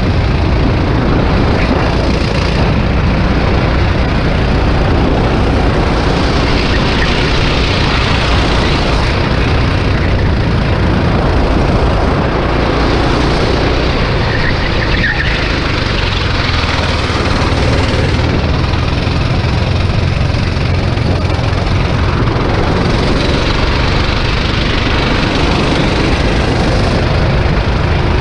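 Racing kart engine running flat out on track, loud and steady, with its tone shifting every few seconds as the driver comes on and off the throttle through the corners.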